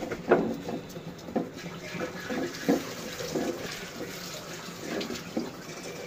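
Silicone spatula stirring dry granulated sugar in a steel pot, irregular gritty scrapes with a few light knocks against the pot; the sugar is heating on a low flame and has not yet melted into caramel.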